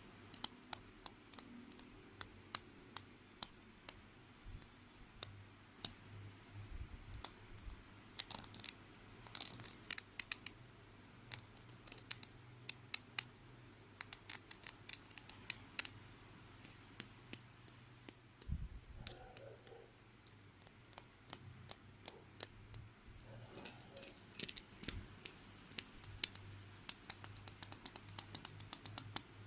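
Sharp, irregular clicks and taps, some in quick clusters, from a school supply being handled close to the microphone.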